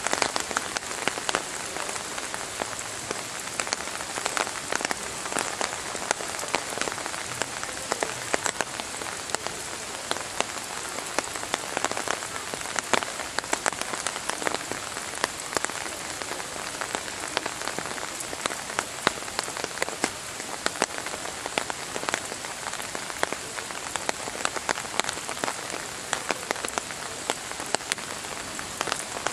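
Steady rain falling on rocks and wet ground, with many individual drops ticking close by.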